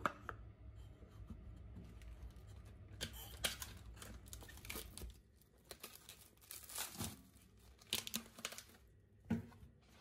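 Plastic wrap being peeled and crinkled off a piece of raw meat by hand, in irregular crackling bursts from about three seconds in, with a knock near the end.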